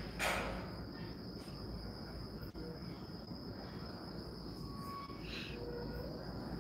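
Steady high-pitched insect trill that does not break off, with a brief burst of noise just after the start.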